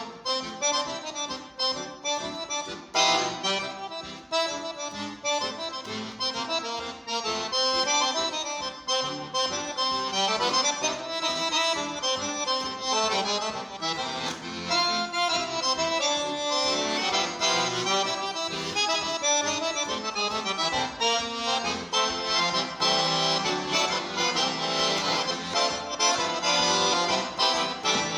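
Piano accordion played solo, a continuous piece of many quick notes, its reeds sounding in chords and runs.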